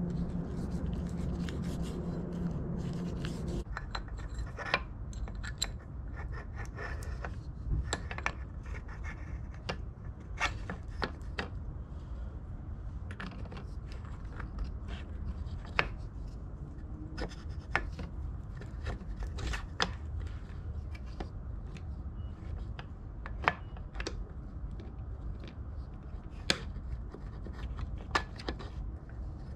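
Scattered light clicks and knocks with some rubbing, as plastic idler wheels and a metal axle are handled and fitted between snowmobile rail brackets.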